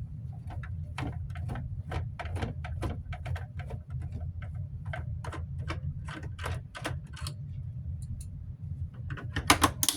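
Small screwdriver turning a screw out of a plastic fan housing: a run of light clicks, about two or three a second, over a steady low hum, with a louder clatter near the end.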